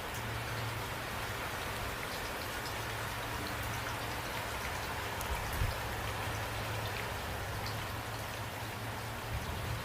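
Steady rain falling, with close drops ticking on a surface over a dense, even hiss and a low rumble underneath. There is a brief soft low thump about five and a half seconds in.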